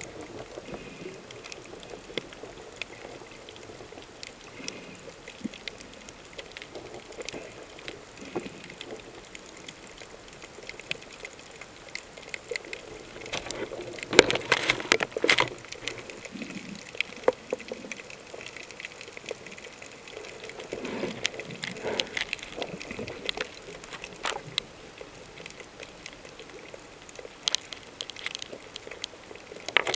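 Underwater sound picked up through a camera housing: a steady scatter of sharp clicks and crackles over a low water hiss. Louder gurgling bursts like rising bubbles come about halfway through and again a few seconds later.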